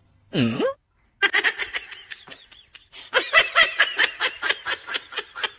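A short swooping sound, then rapid high-pitched laughter from about a second in.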